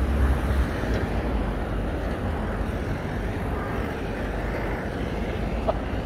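Steady city street traffic noise: a dull rumble of cars on the road, heavier for the first half-second.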